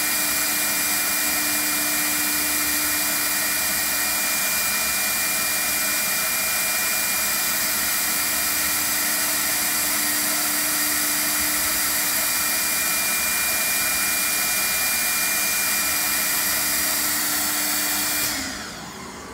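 Alfa CNC woodworking machine running its cutting head with the dust extraction on: a loud, steady machine noise with a thin high whine. Near the end the head switches off and winds down, its pitch falling and the sound dropping sharply.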